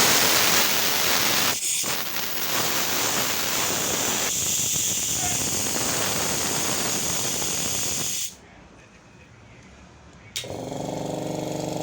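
Compressed air hissing loudly out of the oil-free air compressor's air line, easing a little after about two seconds and cutting off about eight seconds in. A couple of seconds later the compressor's electric motor starts and runs with a steady hum.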